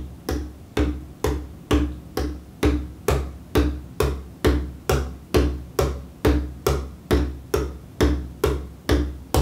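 Bodhrán struck with a wooden tipper in even alternating down-up strokes, a little over two a second. Each stroke gives a deep boom with a sharp click on top.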